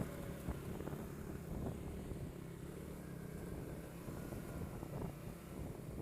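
ATV engine running steadily at low trail speed, with a few short knocks.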